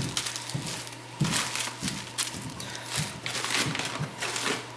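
Bubble wrap and plastic packaging crinkling and rustling in irregular bursts as it is handled, with a few small clicks, over a faint steady hum.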